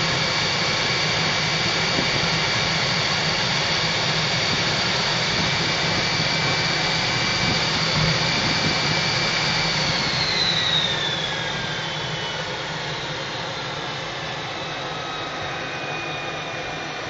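Jet engine whine and rumble, heard from inside a small jet's cockpit while taxiing close behind another jet. The high whine holds steady, then falls in pitch about ten seconds in as the sound drops a little in level.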